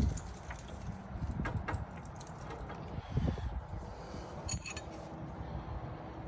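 Scattered light metallic clicks and clinks of hand tools working on an edger's blade-adjustment pin, one ringing clink about four and a half seconds in, over a steady low rumble.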